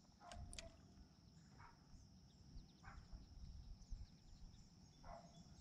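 Faint evening insect chorus: a steady high-pitched drone, with a few short chirps scattered through it.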